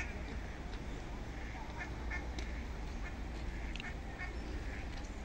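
Ducks quacking on the river, a string of short separate calls, over a steady low rumble.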